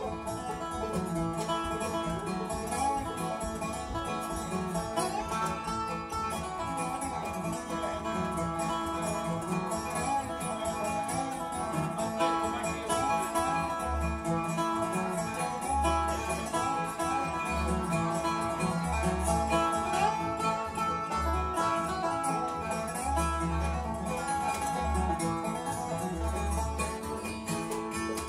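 Live acoustic bluegrass band playing an instrumental passage: picked banjo, lap-played resonator guitar (dobro), strummed acoustic guitar and upright bass.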